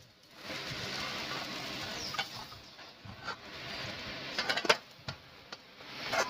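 Food sizzling in oil in a frying pan, with a few sharp clinks and scrapes of a utensil against the pan.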